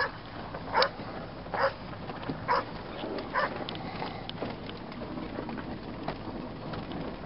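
A dog barking five times, about once a second, then falling quiet, over a steady low background hum.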